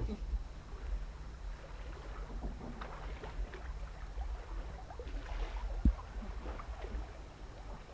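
Wind rumbling on the microphone aboard a sailing yacht under sail, over a faint steady rush, with a few small knocks and one sharper knock about six seconds in.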